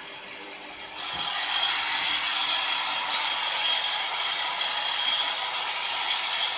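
Angle grinder fitted with a 100 mm carbide-tipped circular saw blade sawing through aluminium plate on a CNC router, with coolant spraying over the cut: a steady, harsh hiss that gets suddenly much louder about a second in and then holds.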